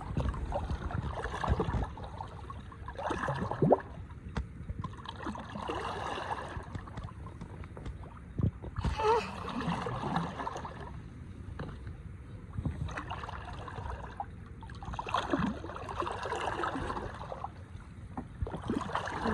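Water splashing and sloshing beside a small fishing boat as a sturgeon is held at the side for release, with a few sharp knocks and faint voices in the background.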